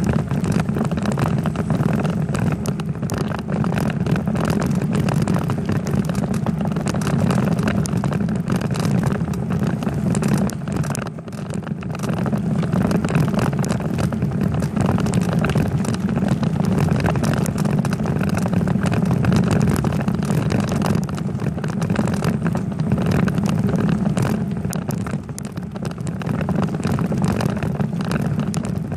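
Steady rush of wind noise and tyre rumble from a moving bicycle, picked up by a camera mounted on the bike.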